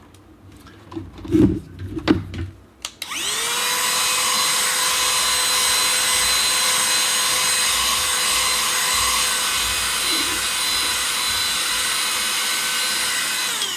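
Small Cleanmybricks vacuum cleaner for LEGO being switched on about three seconds in, its motor whine rising quickly to a steady high pitch, then switched off at the end and falling in pitch as it spins down. A few handling knocks come before it starts.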